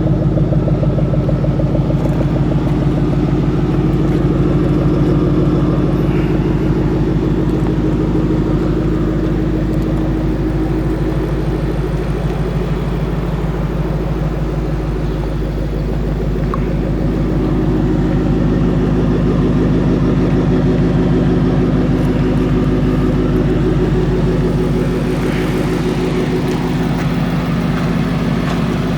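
Ford Mustang Shelby GT500's supercharged 5.8-litre V8 running steadily at idle.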